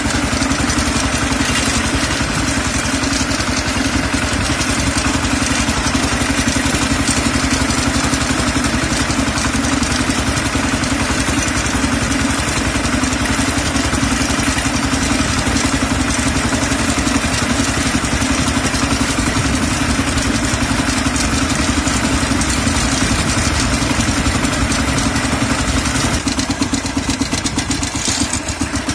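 Kentavr MB 1010DE-6 heavy walk-behind tractor's single-cylinder diesel engine running steadily as the machine drives along. A little before the end the engine sound eases slightly.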